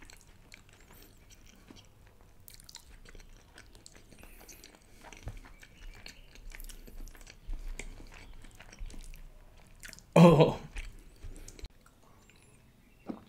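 Close-miked chewing and wet mouth sounds of a man eating creamy chicken malai tikka, with small smacks and clicks throughout. One louder sound comes about ten seconds in.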